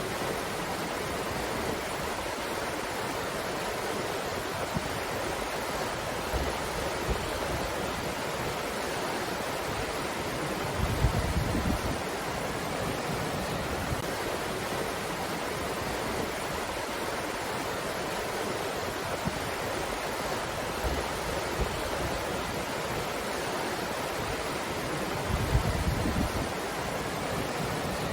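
Breeze blowing as a steady, even rush, with two brief low buffets of wind on the microphone, one about eleven seconds in and one near the end.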